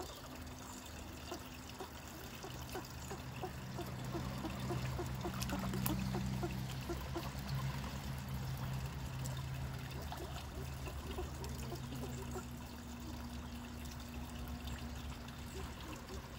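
Water trickling and lapping in a duck pond, with small splashes from ducks feeding, over a steady low hum.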